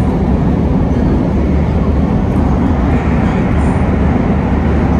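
N700-series Shinkansen bullet train running at high speed through a mountain tunnel, heard from inside the car: a loud, steady noise, heaviest in the bass.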